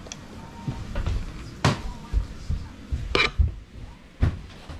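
Half a dozen irregular knocks and clatters, some of them sharp clicks, the loudest about three seconds in, from household handling and movement.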